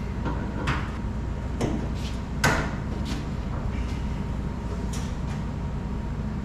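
Scattered metallic clicks and knocks of locking pliers working on a faucet's fittings, about six in all, the loudest about two and a half seconds in, over a steady low hum.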